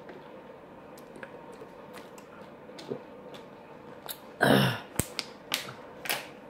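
A person pausing to take a drink: scattered small clicks and knocks of a drink container being handled, with one short, loud rush of noise about four and a half seconds in, then a few more clicks.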